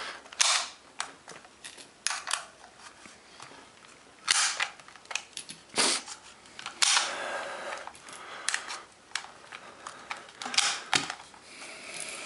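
Sharp metallic clicks and snaps as .223 cartridges are pressed by hand, one at a time, into a 30-round metal AR-15 magazine. The clicks come irregularly, a few loud ones among smaller ticks and rattles, with the magazine spring getting tight.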